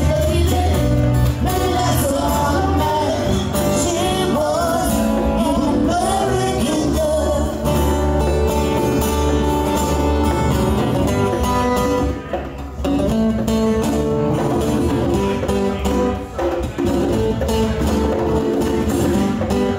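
Live acoustic band playing: two strummed acoustic guitars, electric bass guitar and hand-played conga drums, with singing in the first half before the song goes on without vocals.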